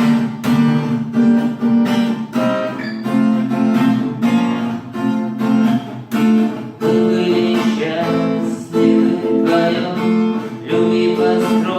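Acoustic guitar strummed in a steady rhythm, about two strokes a second: an instrumental break between sung verses.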